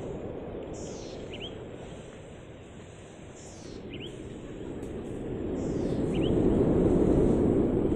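A bird calling again and again, one short high call about every two and a half seconds, four times in all. Under it runs a low rushing outdoor noise that grows louder from about five seconds in.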